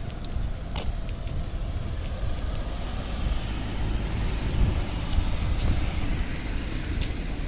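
Street ambience: a low, fluctuating rumble of wind buffeting the microphone over the hiss of city traffic, with a couple of brief clicks.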